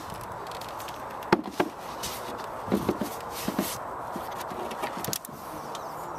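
Knocks and clatter of the hinged canopy of a recumbent trike's fairing shell being lowered and settled shut, the loudest knock about a second in and a few lighter ones after.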